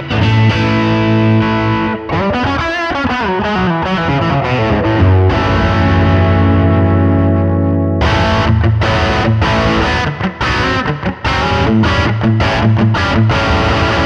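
Electric guitar played through a DemonFX King of Drive dual overdrive pedal with one channel engaged, giving a distorted tone. Ringing chords and bent, wavering notes lead into a long held chord. About eight seconds in, the playing turns to short, choppy strummed chords.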